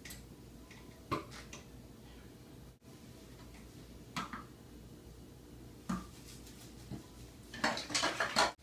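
Dishes and cups knocking and clinking in a kitchen sink as they are handled and washed: a few scattered knocks, then a busier clatter near the end.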